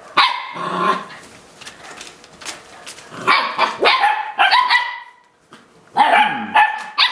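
Eight-week-old puppies barking and yipping with short, high-pitched barks in three bouts, near the start, in the middle and near the end.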